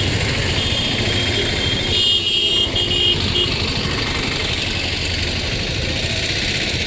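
Close street traffic: a motorcycle, three-wheeled Piaggio Ape auto-rickshaws and a car passing with their engines running, a steady rumble throughout. A few short, high-pitched beeps sound about two to three and a half seconds in.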